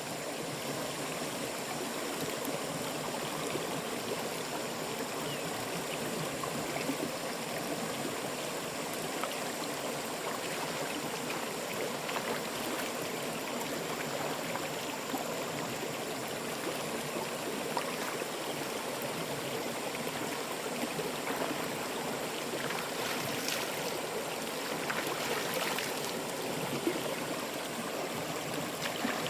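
Steady rush of flowing water, like a stream after rain, with a few faint light knocks about three-quarters of the way through.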